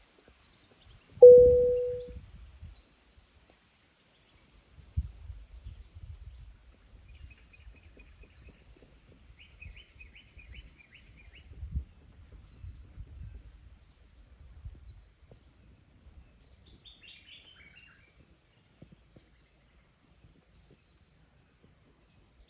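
Birds chirping faintly in short twittering series, over uneven low rumbling noise. About a second in, a single short, loud, low steady tone is the loudest sound.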